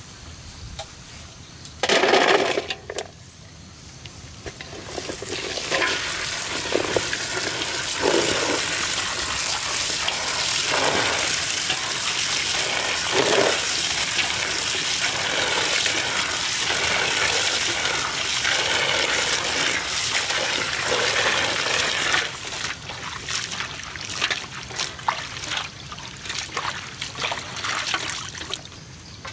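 A stream of water running steadily into a large metal basin of red chilies, a constant rush as hands turn the chilies in it. After the water stops, uneven splashing and sloshing as the wet chilies are lifted out by hand. A short loud noise about two seconds in.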